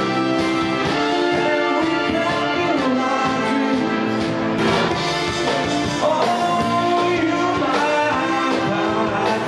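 Eight-piece swing band playing live, with brass horns prominent in held and sliding notes.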